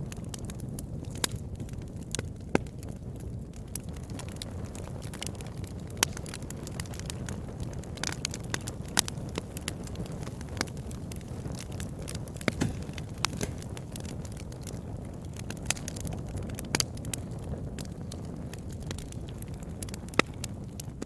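Wood campfire crackling: a steady low rumble with many small irregular pops and a few much louder sharp snaps scattered through.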